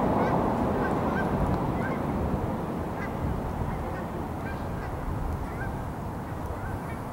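A flock of geese honking repeatedly, short calls about two a second, over low rumbling wind noise on the microphone.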